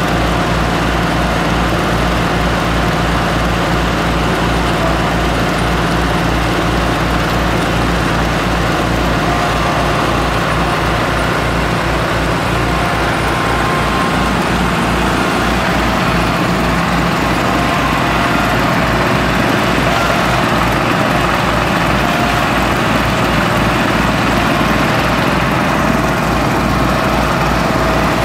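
Small single-cylinder gas engine of about 6.5 horsepower running steadily, driving the eccentric counterweights that shake a topsoil screen, with the loader tractor's engine running alongside.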